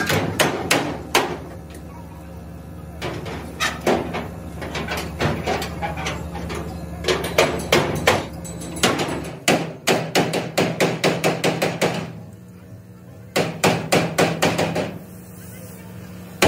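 Hammer blows on the steel frame of an excavator cab, struck in quick runs of several per second with short pauses between runs, as the damaged frame is beaten back into shape. A steady low hum runs underneath.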